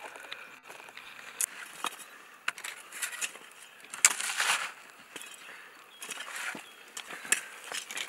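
Shovels cutting and scraping into dry, clumpy soil, with crunching and clods falling. It comes in irregular strokes, the longest and loudest about four seconds in.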